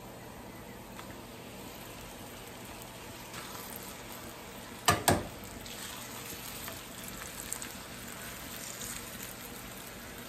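Corn tortillas heating in a frying pan with a steady, faint sizzle. About halfway through come two sharp clacks close together: kitchen tongs hitting the pan as a tortilla is turned.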